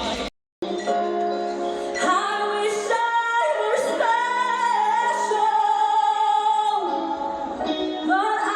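Show music with a woman singing long held notes over the accompaniment, recorded on a phone; the sound drops out completely for a moment about a third of a second in.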